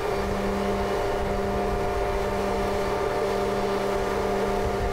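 Engine of a self-propelled multi-axle girder transporter carrying a full-span concrete box girder, running with a steady drone and constant hum tones.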